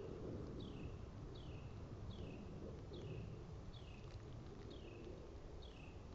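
A small bird calling, a single down-slurred chirp repeated about once every 0.8 seconds, over a steady low outdoor hiss.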